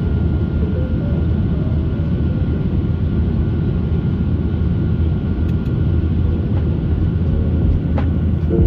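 Steady low rumble of engine and airflow noise inside the passenger cabin of a Boeing 737-800 with its CFM56 turbofans, with a faint steady high tone over it and a sharp click near the end.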